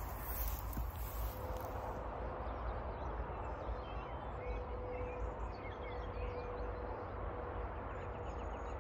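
Small birds chirping over a steady low outdoor rumble, with a faint steady hum running through.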